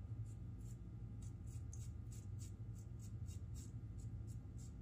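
Raw Shaving plate safety razor scraping through lathered stubble on the upper lip in short, quick strokes: faint scratches at about three a second.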